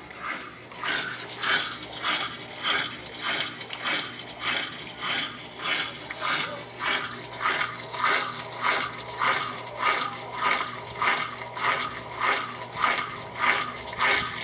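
Consul Maré Super top-loading washing machine agitating its load: water and clothes swish in regular strokes about one and a half times a second over the steady hum of the motor.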